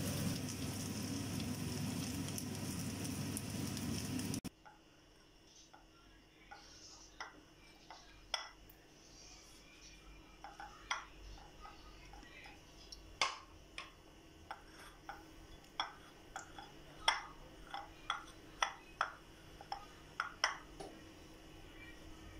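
Textured vegetable protein sizzling as it fries in a pan, with a steady hiss that stops abruptly a few seconds in. After that come scattered sharp clicks and taps of a wooden spatula against a plate as the fried pieces are moved about.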